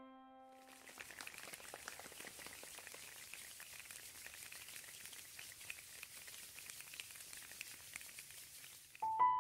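Faint, steady rain-like patter of many small ticks and crackles, the simulated rainstorm of the piece. It starts about half a second in and stops just before the end.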